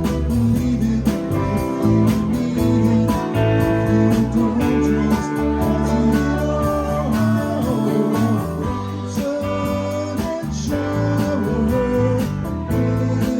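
Live rock band playing: guitars, with bending lead notes, over bass and a steady drum beat.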